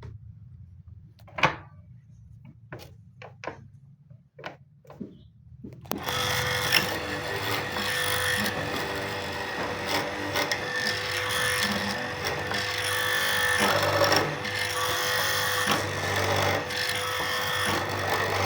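A few separate knocks, then about six seconds in a power drill starts and runs steadily, boring into wood.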